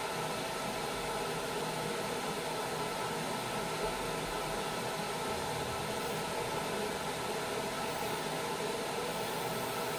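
Steady running hum and hiss of a 20W Raycus fiber laser marking machine, its cooling fans and galvo head going, with several faint steady tones over the noise as it marks a stainless steel bowl.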